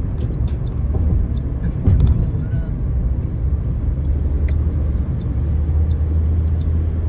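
A car driving at motorway speed, heard from inside the cabin: a steady low rumble of road and engine noise, with a brief louder bump about two seconds in.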